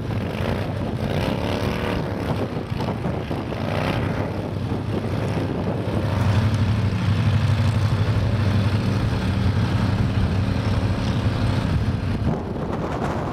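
A jon boat's outboard motor runs hard, its pitch rising and falling early on. It is loudest and steadiest in the middle stretch.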